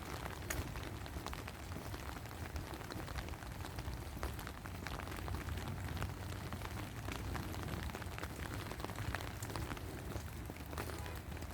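Rain falling steadily, a dense patter with many scattered individual drop ticks over a low rumble.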